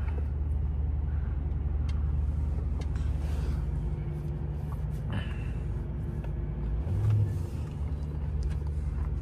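Steady low rumble of a car idling in stopped traffic, heard from inside the cabin of a Mercedes-Benz S580.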